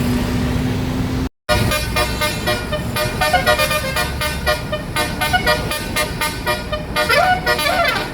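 Basuri-type telolet bus horn playing a fast, warbling flute-like melody of short rapid notes, with sliding notes near the end. It starts after a brief dropout in the sound about a second in; road noise comes before it.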